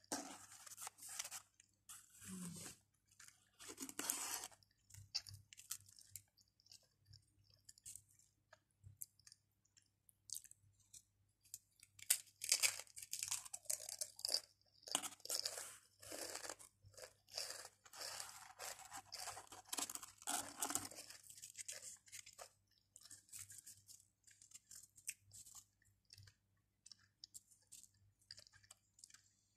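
Close-up chewing of Pringles potato crisps: irregular crunching and crackling, busiest about halfway through.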